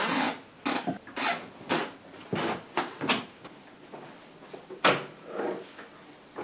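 Household handling noises, like things being put away while tidying: an irregular run of short knocks, scrapes and rustles, with one sharp click about five seconds in.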